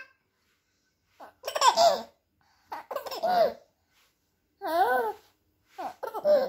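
A baby laughing in four short bursts, each under a second long, with pauses between them.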